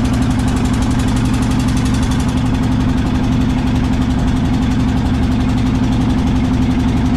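A small wooden fishing boat's engine running steadily at an even, unchanging speed, with a fast regular chugging.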